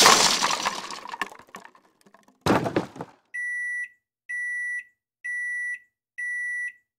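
Added crash sound effects: a loud crashing noise that dies away over the first second or two, then a short, sharp crash about two and a half seconds in. After that an electronic alarm beeps four times, about once a second, each beep a steady high tone lasting about half a second.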